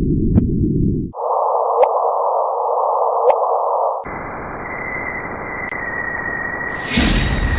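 Electronic static-like hiss presented as a sound of space, changing abruptly in steps. A low rushing hiss with scattered ticks gives way about a second in to a higher, narrower hiss over a steady low tone. At about four seconds it opens into a wider hiss with a steady high whistle, and a brief bright burst of hiss comes near the end.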